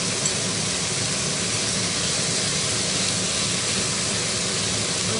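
Minced chicken stir-frying in hot oil in a pan, a steady sizzling hiss.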